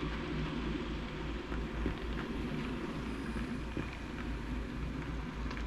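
OO gauge model train, the Accurascale Class 37/4 diesel hauling Hornby Mark 2 coaches, running on the track: a steady rolling rush of wheels on rail over a pulsing low hum, with a few faint clicks.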